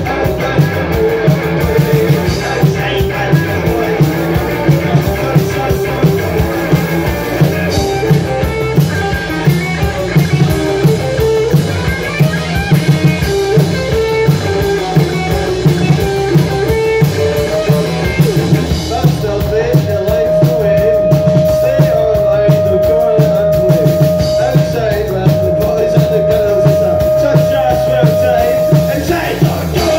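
Live rock band playing loud, with electric guitar, bass guitar and drum kit keeping a driving beat. In the latter part a single high note is held steady for about ten seconds over the band.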